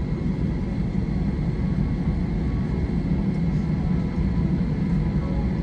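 Cabin noise of an Airbus A321 taxiing after landing: a steady low drone of the idling jet engines and the aircraft rolling along the taxiway.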